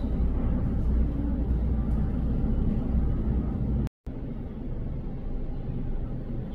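Steady low rumble of a Kawasaki T-4 jet trainer's engines as it flies past, cut off abruptly about four seconds in. After a brief silence comes a fainter steady rumble as a C-130H Hercules transport flies at a distance.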